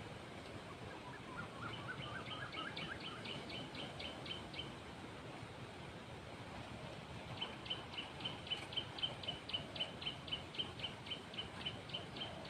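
A bird calling in rapid runs of short, high, evenly spaced notes, about four a second: one run from about two seconds in to nearly five, a lower run of notes beneath its start, then a longer run from about seven and a half seconds on.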